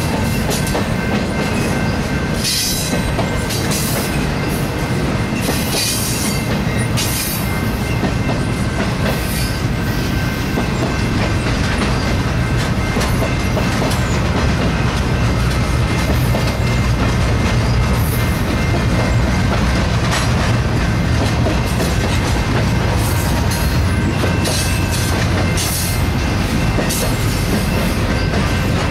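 Intermodal freight cars of a BNSF stack train rolling past at close range: a steady low rumble of steel wheels on rail with clickety-clack. Faint steady high squeal tones from the wheels run underneath, with short bursts of high hiss every few seconds.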